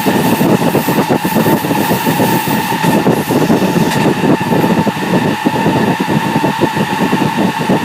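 Running noise inside a JR West 207 series 1000 subseries motor car with a Toshiba GTO VVVF inverter: a steady rumble of wheels on rail under a steady tone from the traction equipment. This car's inverter is known for an off-pitch, out-of-step sound.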